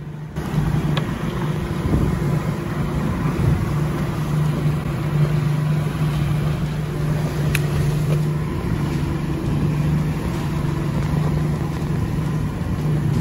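A boat's engine running steadily at idle, a constant low hum with water and wind noise around it.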